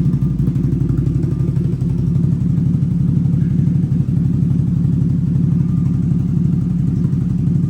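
CFMOTO CFORCE 1000's V-twin engine running at a steady speed through a Team MSC cat-delete header, the exhaust pulsing fast and evenly as it warms up.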